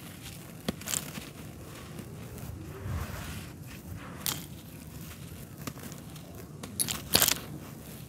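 Hands crushing and crumbling a clump of dry red dirt: grainy crunches as it breaks, with sharp cracks about a second in and around four seconds, and the loudest pair of crunches near the end.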